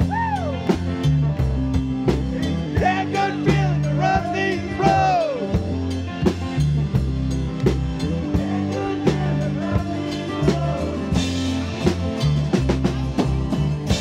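Live rock band playing: a drum kit keeps a steady beat under guitar and bass, with a voice singing in phrases over it.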